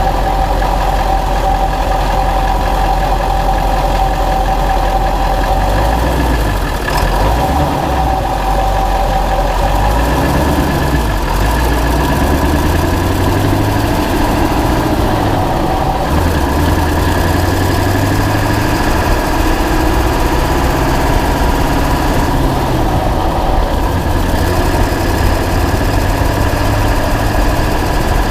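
2000 Ford F250's 7.3-litre Power Stroke V8 turbodiesel running while the truck is driven, picked up under the truck at the suspension spring with loud exhaust and road noise. Engine speed rises and falls through the middle stretch. The recording is made to catch the tick of an exhaust leak.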